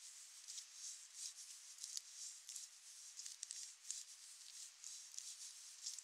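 Faint rain hiss with soft, scratchy footsteps on wet ground, about two a second.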